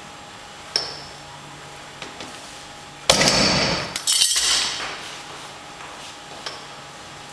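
Weight plates on a Rolling Thunder loading pin clanking: a loud metal clash about three seconds in as the load is set down, then a second clang with metallic ringing a second later as another plate goes onto the pin. A light clink comes under a second in.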